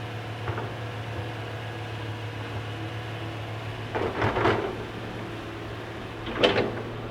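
Excavator running with a steady hum, with two short clattering, scraping bursts about four and six seconds in.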